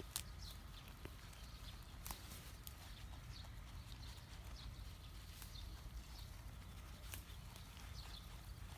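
Baby goat moving about, its hooves clicking sharply a few times, over faint scattered high chirps and a low steady rumble.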